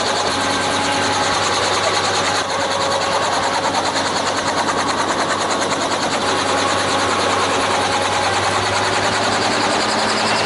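Helicopter in flight: a loud, steady rush of rotor and engine noise with a fast, even rotor chop and a low hum underneath.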